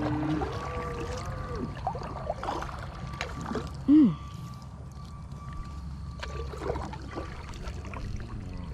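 Cattle mooing: a long, wavering moo at the start that ends under two seconds in, then a short, loud falling call about four seconds in. Water lapping against a kayak runs underneath.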